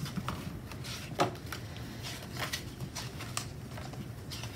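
Pages of a sticker book being flipped and handled: light paper rustles and scattered clicks, with one louder click about a second in.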